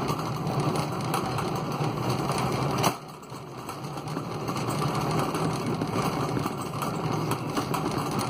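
A store cart rolling fast along the floor: a steady rumble that builds, with a single sharp knock about three seconds in, after which the rumble dips briefly and builds again.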